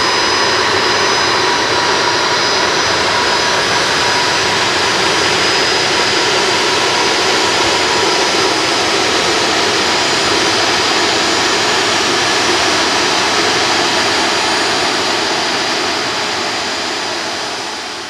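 Bombardier Challenger business jet's twin rear-mounted turbofan engines running at taxi power: a steady loud rush with a high whine over it, fading out near the end.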